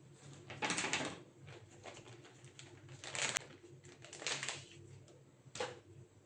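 Hands working on a laptop's parts during disassembly: a series of short clicks and scrapes, with the sharpest click a little past the middle.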